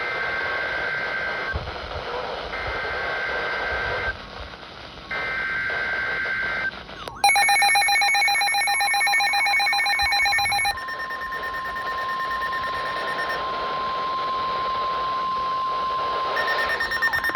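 NOAA Weather Radio alert signalling for a new warning: three short bursts of warbling SAME data-header tones, about a second and a half each with short gaps, then a sharp click and a loud pulsing electronic beep of the weather radio's alarm. A long steady single-pitch warning alarm tone follows, and the pulsing beep returns near the end.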